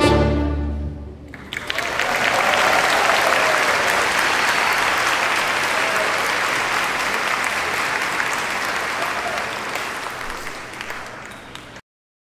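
The final chord of a choir and orchestra rings and dies away. A large audience then breaks into applause, which slowly thins and cuts off abruptly near the end.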